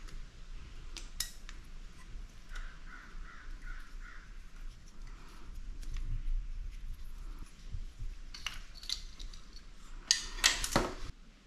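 Tools and small metal parts clinking and clattering as they are handled, with a short run of squeaky chirps a few seconds in and a louder clatter near the end.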